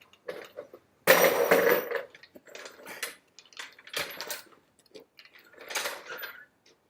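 Metal tools and parts clinking and knocking during a car wheel change, with one louder scraping clatter lasting about a second, about a second in.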